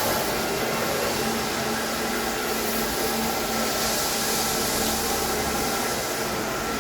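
X-7 wet floor-cleaning vehicle running steadily: even machine noise with a constant low hum and a faint whine.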